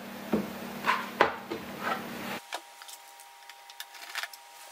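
Scattered knocks and clicks from an aluminium unibody MacBook Pro being handled and turned over, then a small screwdriver working at its bottom-case screws. The background room noise drops away abruptly about halfway through.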